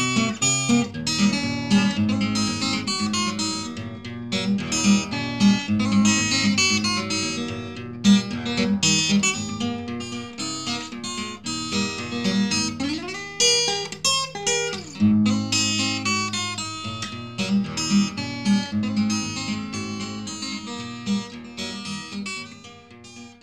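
Background music of acoustic guitar, plucked and strummed, fading out near the end.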